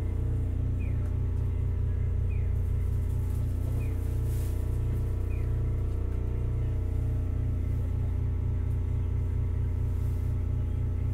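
Onboard sound of a Hakodate City Tram 3000-series streetcar (car 3002, Toyo early GTO VVVF inverter control): a steady low rumble with several steady hum tones. A faint short falling chirp repeats about every second and a half through the first half.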